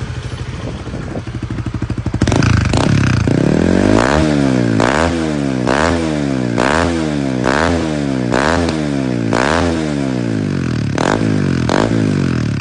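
Honda Winner motorcycle's single-cylinder engine through an aftermarket CBX exhaust, idling at first, then about two seconds in revved up and down over and over, roughly once a second. There are about ten quick throttle blips before it settles back near the end.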